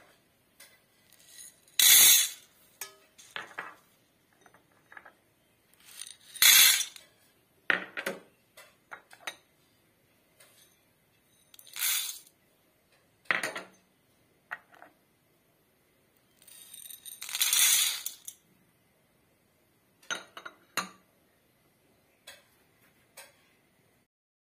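Dry chickpeas, moong beans, moth beans and fenugreek seeds poured from small glass bowls into a stainless-steel bowl: four rattling pours about five seconds apart, with smaller clinks of glass between them.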